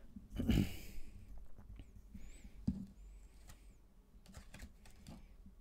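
Tarot cards being handled: a soft rustle about half a second in, then scattered light clicks and taps as cards are drawn from the deck and laid on a wooden table.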